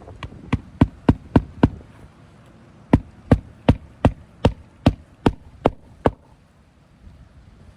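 Hammer driving roofing nails into asphalt shingles: a quick run of about six strikes, a pause of about a second, then about nine evenly paced strikes that stop about six seconds in.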